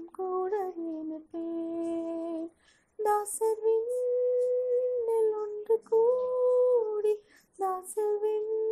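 A woman singing a Tamil Christian hymn, her voice alone in long held notes, with short breaths between phrases about two and a half and seven seconds in.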